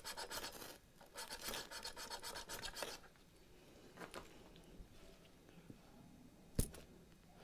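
A bushcraft knife scraping in quick repeated strokes for about three seconds, then a single sharp knock near the end.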